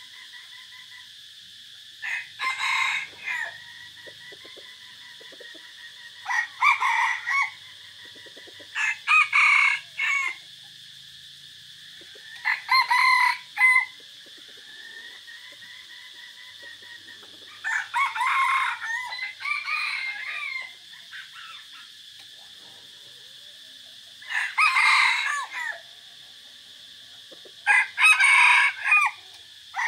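Caged decoy red junglefowl roosters crowing: seven short crows a few seconds apart, the longest and most broken one a little before the middle, over a steady high hiss.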